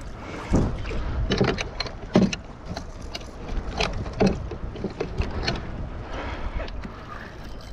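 Irregular knocks and clatter of fishing gear against a plastic fishing kayak's hull and deck, over a steady low rumble of wind and water.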